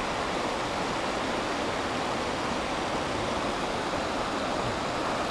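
Shallow river rapids rushing over a rocky shoal: a steady, even rush of water.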